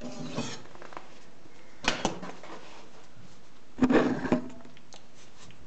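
Handling noise from a handheld camera being moved about: short clusters of knocks and clicks about every two seconds, the loudest about four seconds in.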